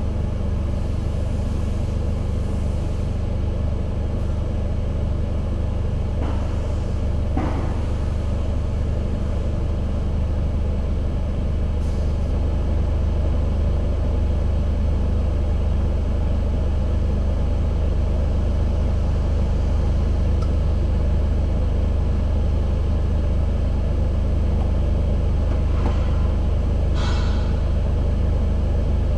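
Car engine running steadily with a low, even hum; no sustained belt squeal stands out. Two brief clicks or knocks come about six seconds in and again near the end.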